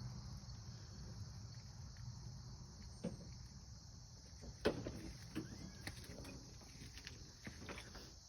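Insects droning steadily in the background, with a few faint knocks and rustles, the loudest nearly five seconds in.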